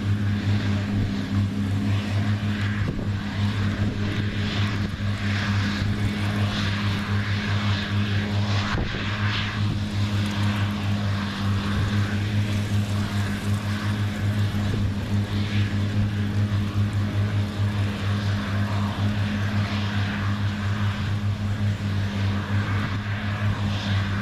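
New Holland CR9060 twin-rotor combine running steadily while harvesting soybeans: a constant low engine drone with an uneven hiss above it that swells and fades.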